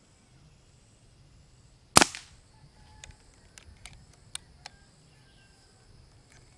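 Brocock Atomic XR .22 regulated PCP air pistol firing one shot about two seconds in: a single sharp crack with a short ringing tail. It is followed by several light metallic clicks as the side lever is cycled to cock and load the next pellet.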